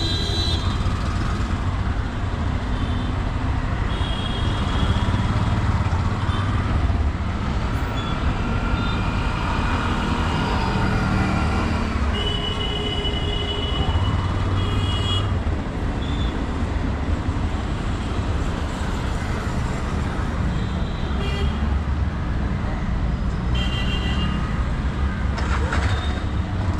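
Steady road traffic noise with short vehicle horn toots every few seconds.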